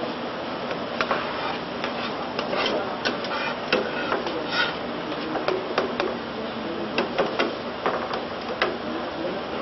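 Metal slotted spoon stirring a thick sauce in a small saucepan, with irregular clinks and scrapes as it knocks against the pan's sides and bottom.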